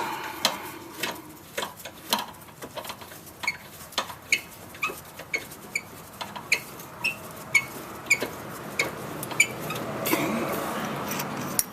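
Hand wrench working the bottom 10 mm slide-pin bolt out of a rear disc-brake caliper: a long run of sharp metallic clicks, about two a second, each with a brief ringing.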